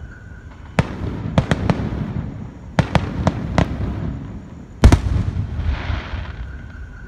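Aerial firework shells bursting: a string of sharp bangs over the first few seconds, the loudest about five seconds in, each trailing into a low rolling rumble, then a short hiss.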